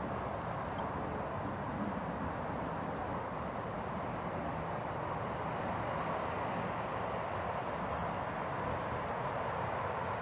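Steady, dense night chorus of calling frogs and insects.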